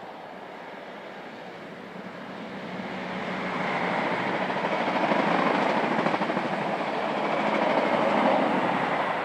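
High Speed Train (InterCity 125) with a diesel power car at each end, passing at speed through a station. The rush of wheels and engines swells from about two seconds in and stays loud, peaking again as the rear power car goes by near the end.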